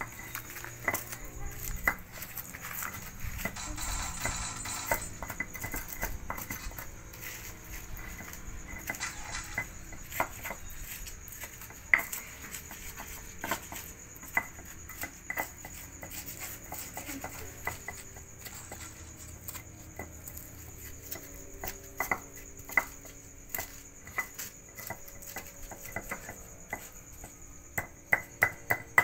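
Stone pestle knocking and grinding in a stone mortar (Indonesian cobek and ulekan), crushing chilies and other ingredients for a spice paste: scattered sharp clacks of stone on stone with scraping, turning to a quicker, regular pounding near the end.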